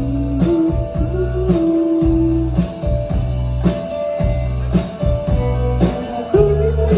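Live rock band playing an instrumental passage: a sustained lead melody line over bass notes, with a drum hit about once a second.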